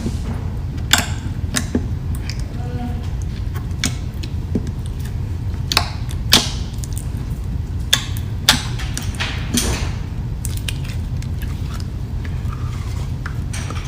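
Slime being squished and poked by hand, giving irregular sharp clicks and pops, over a steady low hum.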